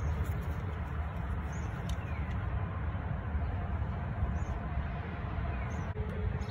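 Steady low rumble of outdoor background noise, with a few faint high chirps.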